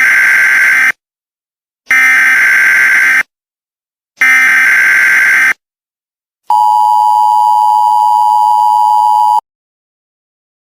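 Emergency Alert System tones: three harsh, screeching bursts of digital header data, each a little over a second long with about a second between them. These are followed by the steady two-tone attention signal, which holds for about three seconds.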